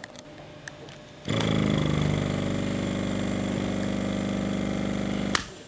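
Small 12-volt oil-less diaphragm air compressor for hookah diving switched on about a second in, running steadily with a motor hum, then cut off suddenly near the end.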